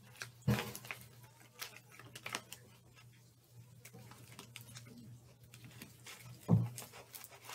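A spoon stirring slime in a plastic bowl: quiet, irregular clicks and scrapes as the glue and activator are mixed. Two soft thumps stand out, about half a second in and near the end.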